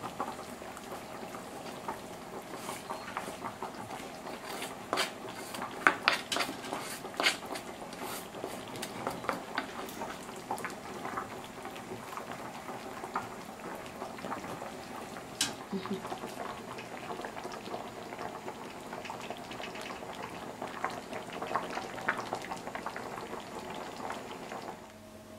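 Thick fish soup simmering in a wide pan, with irregular bubbling and popping and a few sharper clicks, as from a wooden spoon against the pan, about six to seven seconds in.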